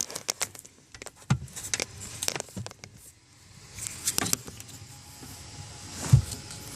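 Irregular clicks, knocks and rustles of someone handling things and moving about a pickup truck's cab, with a louder thump about six seconds in.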